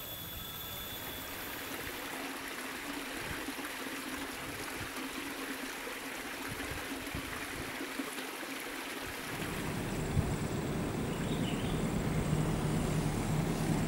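Steady outdoor rushing noise, like running water or wind. About nine seconds in, a low steady hum comes in and slowly grows louder.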